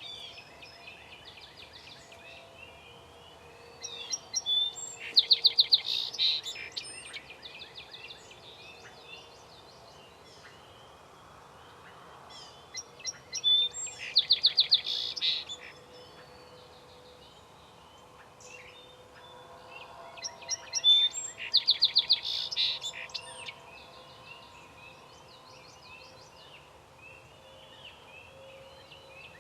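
A songbird sings three songs about seven seconds apart, each ending in a fast trill of rapidly repeated notes. Fainter calls from other birds continue throughout.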